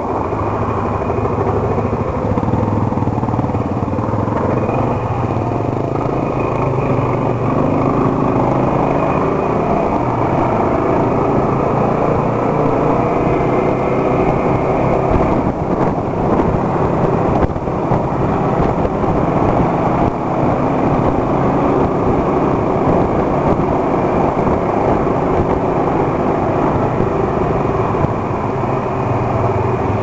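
Motorcycle engine running steadily under way, heard from on the bike, with road noise.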